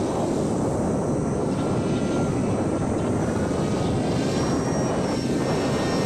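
The electric motor and small propeller of a homemade foam RC airplane running in flight: a thin, steady whine over a rushing noise.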